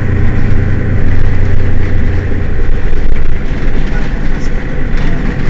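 Mercedes-Benz Citaro city bus engine running, a steady low hum that eases off about a second in.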